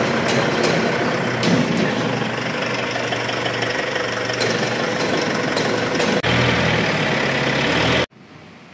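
Steady drone of an idling engine or machinery, growing deeper and stronger about six seconds in and breaking off abruptly near the end.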